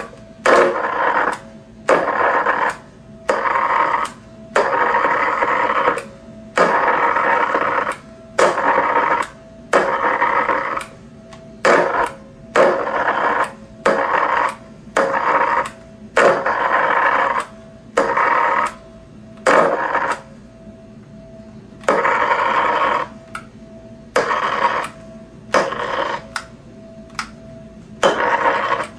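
High-voltage microwave-oven transformer buzzing with its spark gap arcing, switched on and off over and over: about one short burst a second, each under a second long and starting and stopping sharply, with a longer pause about two-thirds of the way through.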